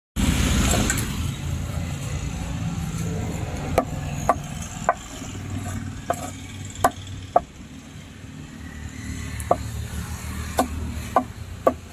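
A large knife chopping catfish on a wooden cutting block: about ten sharp knocks at uneven intervals, over a steady low rumble.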